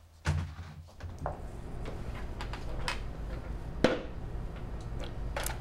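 Bar-room background noise: a low steady hum with scattered short knocks and clinks, like glasses and objects set on a wooden table, the sharpest a little past the middle. A dull thump comes just before the hum starts.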